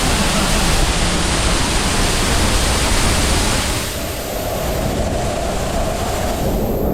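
Waterfall pouring, a loud steady rush of water. About four seconds in it turns duller as the high hiss thins.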